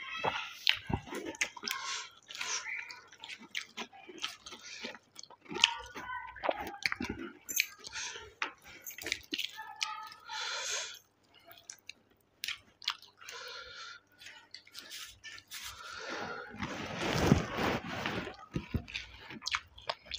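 A man eating rice and mutton curry with his hand: wet chewing and lip-smacking, with squelches as his fingers mix the rice with the curry. A longer, louder noisy sound comes about three quarters of the way through.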